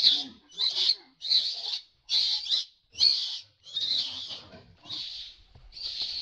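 A macaque screaming over and over: about eight shrill screams a little under a second apart. These are distress screams from a monkey caught in a scuffle with other macaques.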